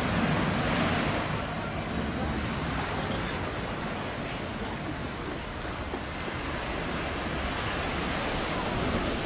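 Steady rushing noise of surf and wind buffeting the microphone at the shore, with no distinct engine tone standing out.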